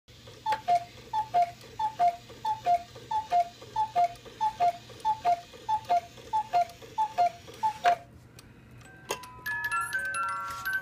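Cuckoo clock striking twelve: twelve two-note falling cuckoo calls, high then low, each with a soft mechanical click. Near the end the clock's music box starts plinking a tune.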